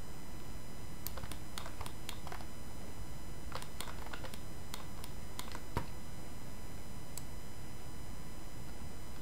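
Irregular clicks from a computer keyboard and mouse, coming in small clusters, over a steady low hum. One slightly louder knock comes about six seconds in.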